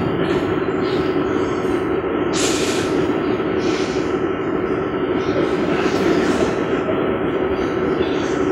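Train-ride sound effect: a steady rolling rumble and hum of a train or metro carriage, with a brief hiss about two and a half seconds in.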